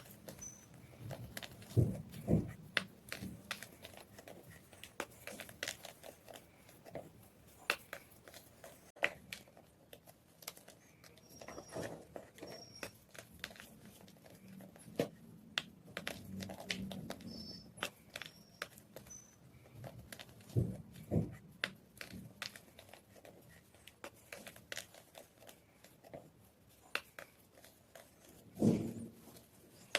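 White gym chalk crunching and crumbling in a steady run of crisp crackles, with a few heavier crunches spread through.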